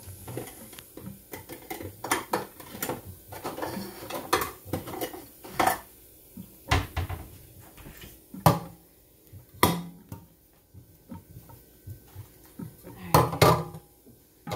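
Kitchenware being handled at a stainless steel sink: irregular clinks and knocks of a metal strainer and dishes, with a few louder knocks in the second half.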